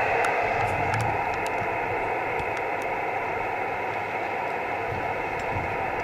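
Amateur radio receiver on the 10 GHz band giving out steady single-sideband static, a hiss held within the radio's narrow audio passband, with no station heard as the band is scanned for a reply.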